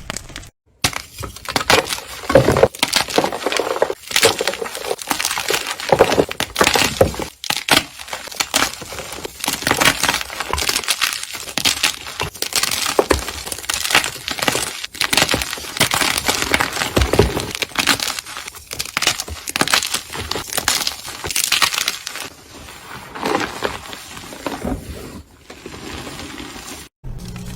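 Slime mixed with crumbly gym chalk being squeezed and pressed by hand, giving a dense run of crunching and crackling. It breaks off briefly about half a second in and again just before the end.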